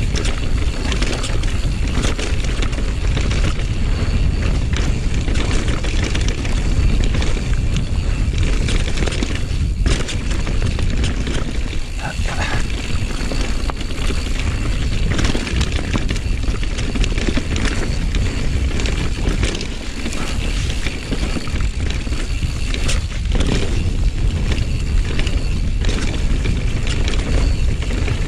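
Riding noise from a 2020 Rocky Mountain Slayer full-suspension mountain bike coming down a dirt singletrack: a steady rumble of wind and tyres on the ground, with frequent clicks and rattles from the bike over bumps.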